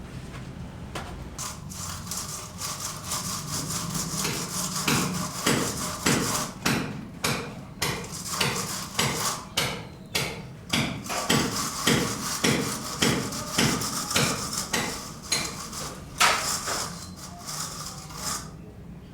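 Repeated hand-tool strokes on building material, about two a second, starting a few seconds in and ending near the end.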